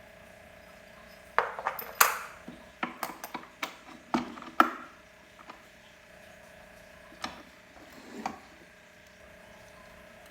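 Small metal parts clinking and knocking as a washer and retaining pin are fitted onto a pressure washer's wheel axle. A quick run of sharp clicks comes from about a second and a half in to nearly five seconds, then two more a few seconds later.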